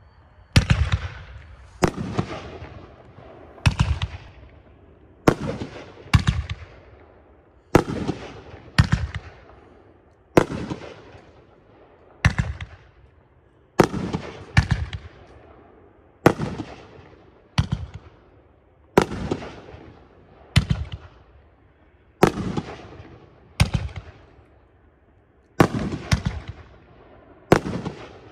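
A 500-gram consumer firework cake, the '76 Pro Line 12-shot Green Dahlia, firing its shots one after another. There are about two dozen sharp bangs, one every second or so, each trailing off. The pattern fits each shot's launch thump followed by its shell bursting overhead into green dahlia stars.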